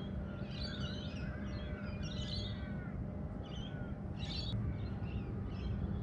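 Several birds chirping and calling, short rising and falling calls overlapping in clusters, over a steady low background rumble.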